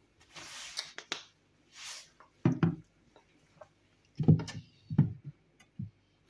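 Kitchen handling noises: a couple of short rustling scrapes, then four dull knocks and bumps of plastic kitchenware on the worktop as a plastic measuring jug is picked up.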